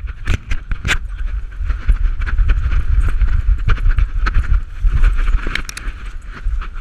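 English bull terrier running and romping with a camera strapped to its back: irregular thumps and knocks from its footfalls and jolting body, over a steady rumble of wind and rubbing on the camera housing.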